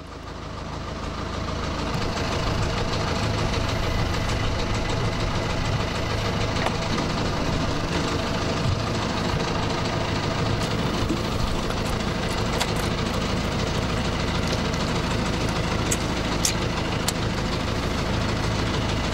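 Small fishing boat's engine idling steadily, a low even hum, with a few light clicks near the end.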